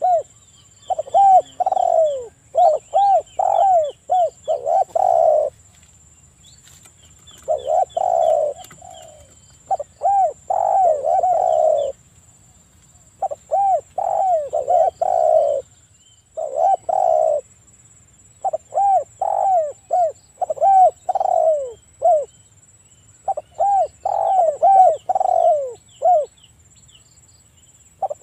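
Spotted dove cooing over and over in phrases of several quick, arching coos, each phrase a few seconds long with short pauses between them. Faint high chirps of small birds sound in the background.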